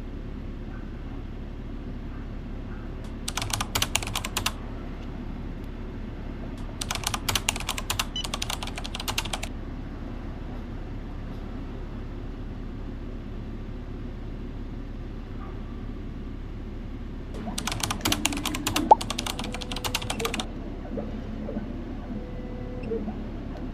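Typing on a keyboard in three short bursts of rapid key clicks, over a steady low hum.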